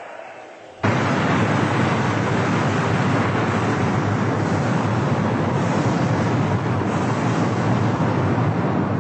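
A loud, steady rushing noise with no clear pitch cuts in suddenly about a second in, after a fading sound, and holds evenly throughout.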